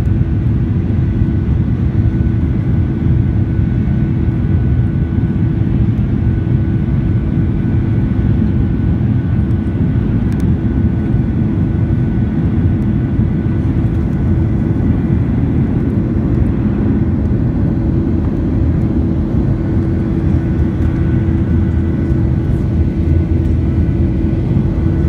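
Boeing 737-800 with CFM56-7B jet engines running steadily: a constant low drone with a faint steady hum on top, unchanging in level.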